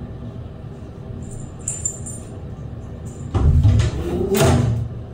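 A cat jumps up and grabs a metal lever door handle: a loud thump about three and a half seconds in, then about a second later a second clatter of the handle and latch as it hangs its weight on the lever to pull it down.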